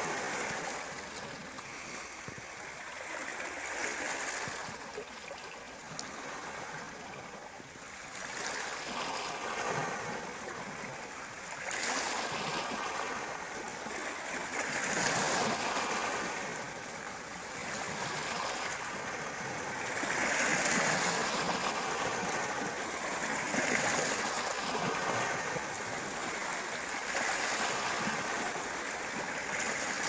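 Small sea waves washing in over a pebble shore, each swell rising and falling away every two to three seconds.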